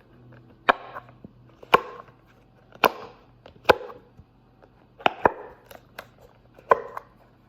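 Sharp pops from a plastic popsicle-maker fidget toy being pressed, about one a second with a quick double pop near the middle, each with a short ringing tail.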